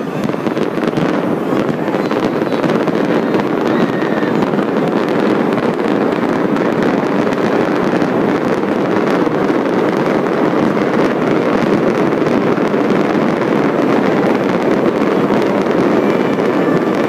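Fireworks going off in a dense, continuous barrage, the explosions running together into a steady crackling din with no single bang standing out.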